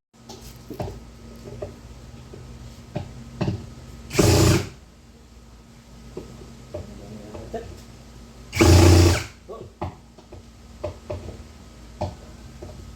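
Power drill run in two short bursts, about four seconds in and again near nine seconds, as when driving screws, with light knocks and handling between.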